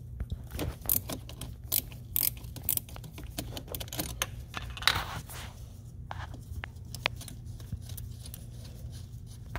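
10 mm ratcheting wrench clicking in short runs as it loosens the nut on the negative battery terminal clamp, the clicks thickest in the first half and sparser later.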